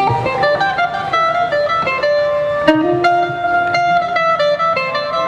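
Mandolin playing a melody with quick note runs, played alone so its sound can be checked and set in the mix.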